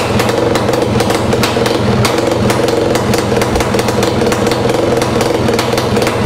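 Yamaha RX-Z's two-stroke single-cylinder engine running loudly at a steady speed through a Proton expansion-chamber exhaust, heard right at the tailpipe, with a rapid crackle over the engine note.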